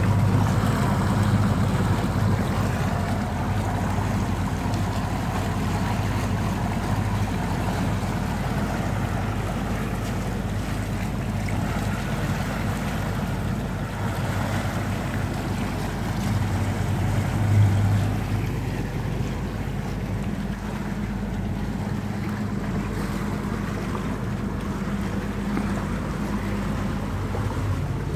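Yamaha 300 outboard motor running under way with a steady low drone, over the rush of churned water from the wake and wind on the microphone. The engine hum swells briefly about two-thirds of the way through.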